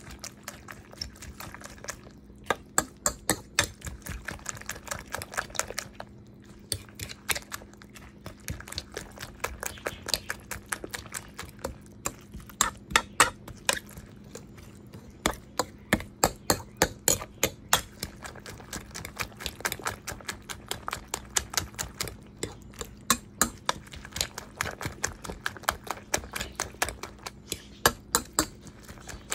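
A metal fork beating eggs with chopped tomatoes and herbs in a dish, clicking rapidly against the dish in quick runs with brief pauses.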